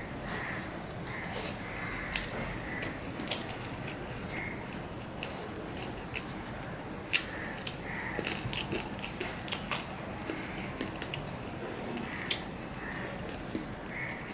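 Fingers mixing and mashing rice with curry on a stainless steel plate: soft wet squishing, with a few sharp clicks as the fingertips touch the metal plate. The loudest click comes about seven seconds in.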